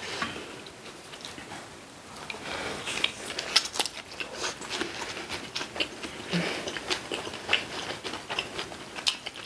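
Close-up eating sounds: chewing, with irregular light clicks and taps of utensils against dishes.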